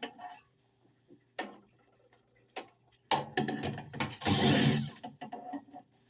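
Metal furnace parts being handled: scattered clicks and knocks, thickening about three seconds in into a clatter with a longer scraping rustle, the loudest sound, just past four seconds.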